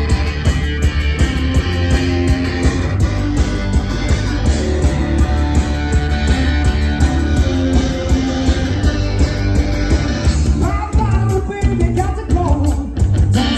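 Live rock band playing loudly: electric guitar and drums, with a voice singing coming in near the end.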